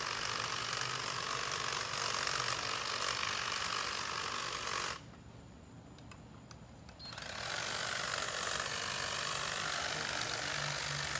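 Handheld electric hedge trimmer running as it cuts shrubs, with a steady blade noise. It stops for about two seconds partway through, then starts again.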